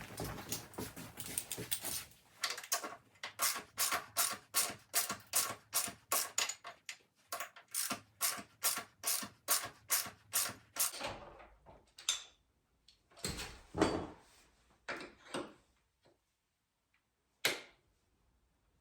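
Hand ratchet worked in quick, even strokes, about two or three a second, tightening down a footpeg mount bolt. It stops near the end and a few separate knocks follow.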